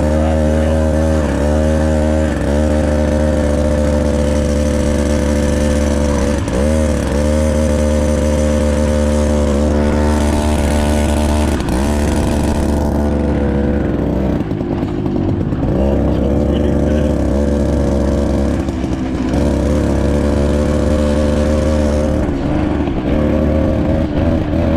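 Mini bike's small engine running under way, its note dipping briefly in pitch a few times as the throttle is eased, then wavering more from about halfway through.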